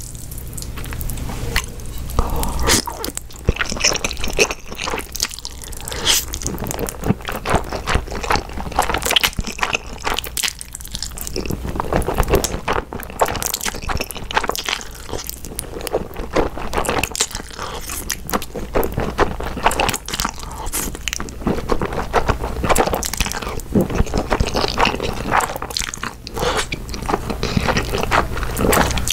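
Close-miked mouth sounds of eating jjajang instant noodles (Chapagetti): slurping and wet, crunchy chewing with many small clicks and squishes, over a steady low hum.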